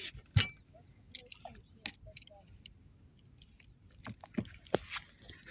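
Irregular knocks and clicks on a fishing kayak, with short splashy hisses of water. The loudest knock comes about half a second in, and several more come close together near the end.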